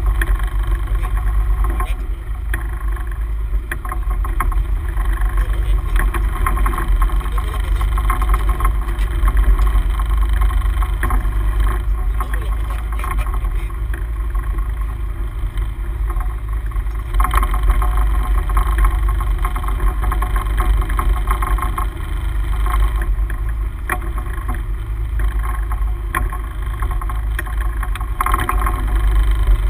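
Steady low rumble of a sportfishing boat at sea, with engine and water noise running under the deck. Brighter, busier patches come about halfway through and again near the end.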